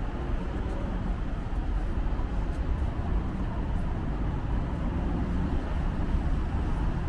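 Strong wind buffeting the microphone, a gusting low rumble that swells and eases without a break.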